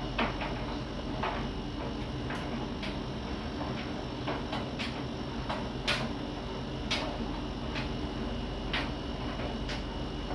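Siemens iQ300 front-loading washing machine running: a steady low motor hum with irregular sharp clicks and taps from the turning drum.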